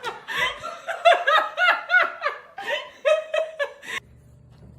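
A person laughing hard in quick, high-pitched bursts, several a second, cut off abruptly about four seconds in. A faint low hum follows.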